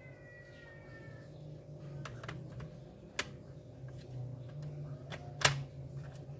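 A high, drawn-out cry falling slowly in pitch fades out about a second in. Then come scattered sharp clicks and knocks, the loudest about five and a half seconds in, over a steady low hum.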